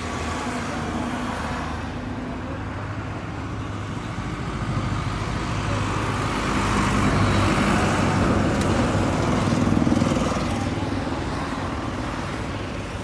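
Hindustan 50 hp tractor's diesel engine running, heard from the driver's seat; it grows louder through the middle and eases off near the end.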